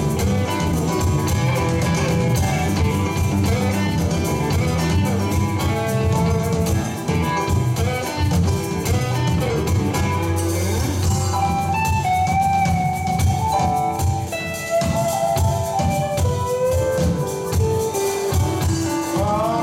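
Live rock band playing an instrumental passage: electric bass, electric guitar, drum kit and keyboard. About halfway through, a lead line of held, sliding notes comes in over the steady beat.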